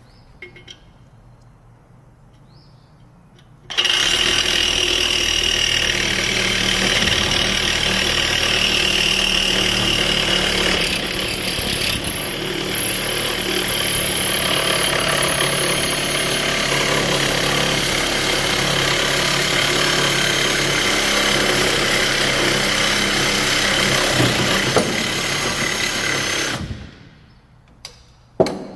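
DeWalt cordless reciprocating saw cutting through the outlet pipe of a catalytic converter clamped in a vise: a loud, steady buzz of the motor with the blade rasping on the metal. It starts about four seconds in, runs for over twenty seconds, stops near the end, then starts again briefly.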